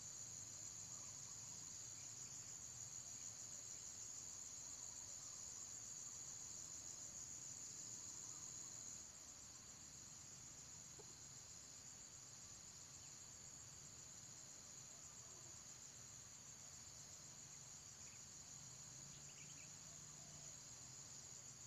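Steady high-pitched shrill of insects, a continuous pulsing drone that steps down in loudness about nine seconds in.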